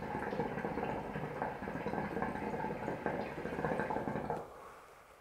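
Water bubbling in the base of a Nargilem NPS hookah during one long pull on the hose, stopping about four seconds in. It is a hard draw to build up a thick cloud of smoke.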